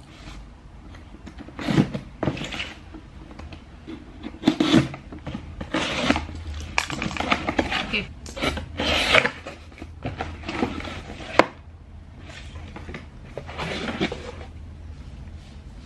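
Cardboard shipping box being opened by hand: its tape cut and pulled, the flaps scraped and torn open, with irregular rips, rasps and sharp knocks, the longest rip about nine seconds in.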